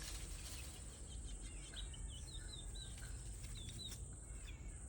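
Small birds chirping: a run of short, high, downward-sweeping chirps repeating every fraction of a second, over a steady low rumble of wind on the microphone.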